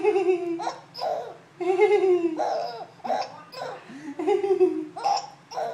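A three-month-old baby laughing in several drawn-out, slightly falling calls, broken by short, sudden hiccups.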